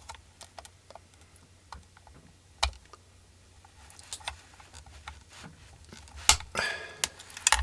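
Hands prying and working at the parts of a GE ECM blower motor during a teardown: scattered light clicks and taps of plastic and metal, a sharper knock about two and a half seconds in, a louder knock past six seconds, then a brief scrape.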